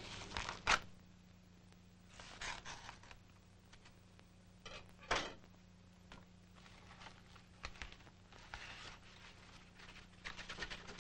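Paper being torn and rustled by hand in short bursts a few seconds apart, with a couple of sharper snaps, over a faint steady hum.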